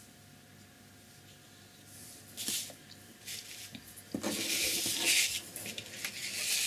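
A sheet of paper sliding and rustling across the tabletop as it is turned, in a couple of short scrapes about two seconds in and a longer, louder one from about four seconds.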